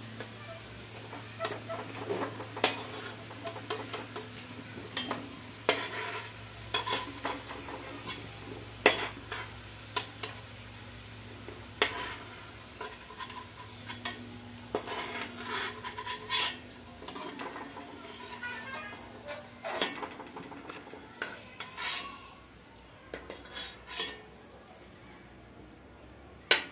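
Metal slotted spoon clinking and scraping against a metal kadhai and a steel plate as fried potato cubes are scooped out, in irregular strokes that thin out near the end. Faint sizzling of the hot fat left in the pan underneath.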